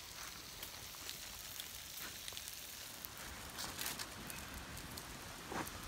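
Campfire crackling: faint, irregular small pops and ticks over a steady hiss.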